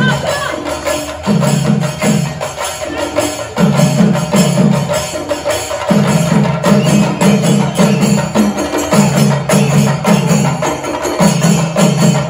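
Loud dance music with a steady percussive beat and a bass figure that repeats in short groups.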